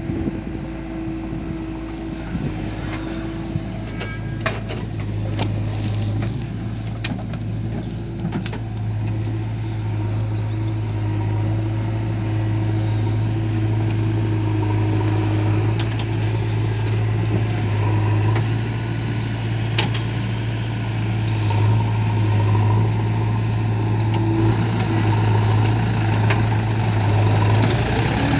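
Heavy diesel engine running steadily with a low drone. A few sharp knocks come in the first half, and it grows a little louder later on.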